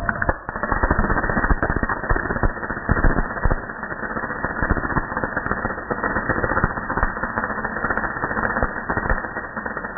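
Ideal band saw blade butt welder joining the two ends of a steel band saw blade: a dense, continuous crackling and spitting as sparks fly from the joint, full of sharp pops. It starts just after the beginning and is loudest in the first few seconds.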